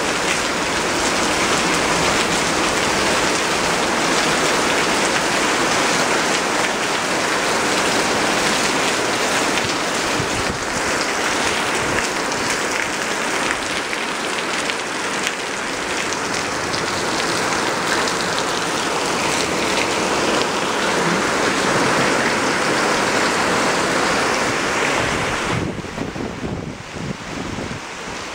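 Heavy rain pouring down onto stone pavers, gravel and garden plants: a dense, steady hiss that thins a little near the end.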